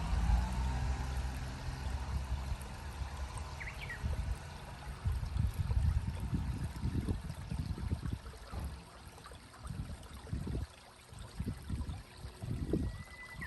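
A loud, uneven low rumble that comes and goes, with a few faint bird calls over it: short chirps about four seconds in and a thin whistle that rises near the end.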